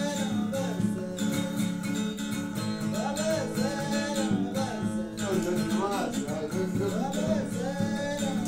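Acoustic guitar played with a man singing over it. The voice drops out for about two seconds, from a second in, then comes back.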